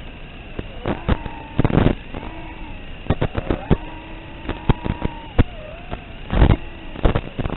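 FPV racing drone's motors whining, the pitch sliding up and down with throttle, broken by many sharp pops and a louder noisy burst about six and a half seconds in.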